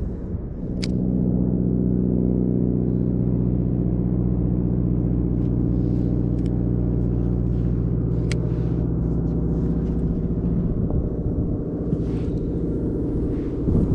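An engine running at a steady pitch with a low hum that sets in about half a second in and eases off after about ten seconds, with a few sharp clicks over it.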